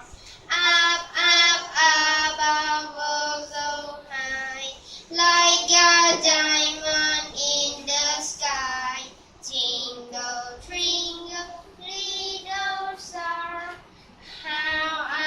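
A child singing a melody in high, held notes, phrase after phrase with short breaks between.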